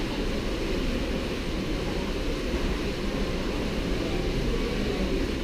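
Steady rushing of water from a rock-lined creek and waterfall, an even noise with a low rumble and no separate events.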